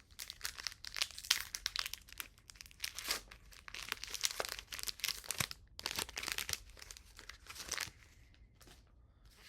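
Foil wrapper of a Pokémon booster pack crinkling and tearing as it is opened by hand, a dense run of crackles that dies down about eight seconds in.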